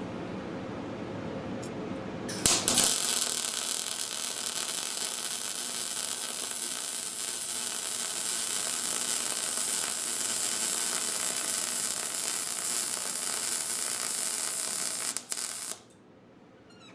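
Argon-shielded MIG welder laying a bead on steel angle, with the wire feed speed turned up. The arc strikes about two and a half seconds in, runs with a steady crackling hiss for about thirteen seconds, then cuts off.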